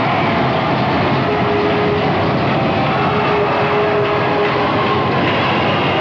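Roller skate wheels rumbling steadily on the banked track as the pack circles, with arena crowd noise mixed in.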